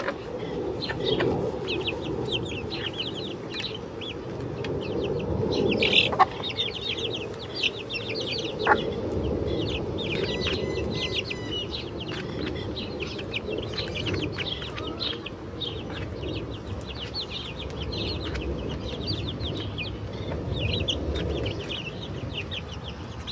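Chickens clucking, with a dense run of short high-pitched calls over a steady lower murmur. A few sharp taps stand out about six seconds and nine seconds in.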